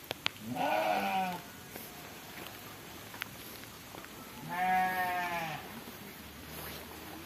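Two long bleats from livestock, about three and a half seconds apart, each rising and then falling in pitch. A couple of light clicks come just before the first bleat.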